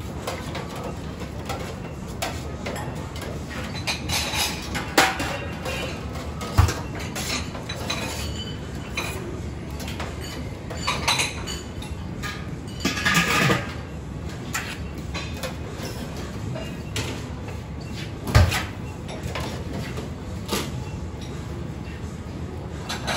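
Scattered metal clinks and knocks from a stainless-steel rice-sheet steamer, its domed lid and a long spatula as bánh cuốn sheets are steamed, over steady background noise.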